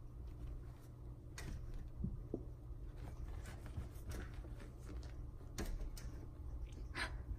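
Cats pawing and scratching at window glass: scattered light taps and scrapes, with a louder scrape about seven seconds in.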